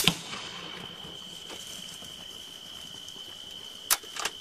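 A single rifle shot fired at a wild boar, a sudden loud crack with a short echo, over a steady high-pitched whine. A few sharp clicks follow near the end.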